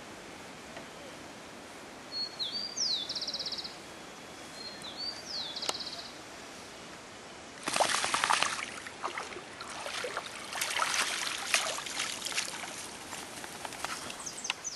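German shepherd splashing its way up the steps and out of a swimming pool, a loud burst of splashing about eight seconds in followed by uneven sloshing and dripping. Before that, two short high trills sound about three seconds apart.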